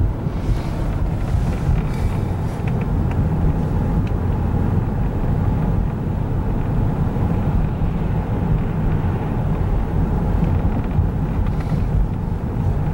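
Steady low rumble of a car's engine and tyres on the road, heard from inside the cabin while driving along a city street.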